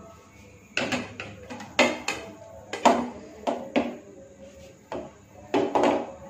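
Plates and a spoon clattering as dishes are handled and set down: several sharp knocks in small clusters.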